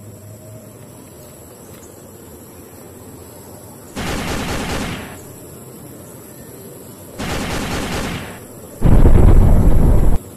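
Machine-gun fire sound effects: two bursts of about a second each, the first about four seconds in and the second about three seconds later, then a louder, deeper explosion lasting over a second near the end.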